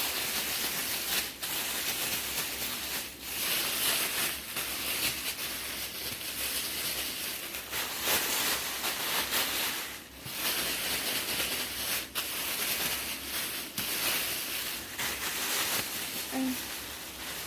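Chicken legs frying in hot grease, a steady hiss that eases briefly every couple of seconds.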